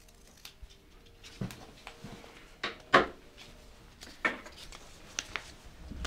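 Handling noises from taping supplies being moved about: several short knocks and rustles, the loudest about three seconds in.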